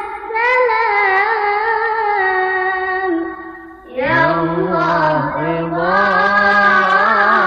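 Sholawat music in the Arabic-style 'padang pasir' manner: an ornamented, sliding melody with no words heard. The melody breaks off briefly a little past halfway, then a lower, stronger line takes over.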